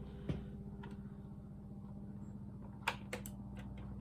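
A few sharp plastic clicks from the mechanical keyboard being handled as loose keycaps are pressed back onto their switches: one click early, then a quick run of clicks about three seconds in, over a steady low hum.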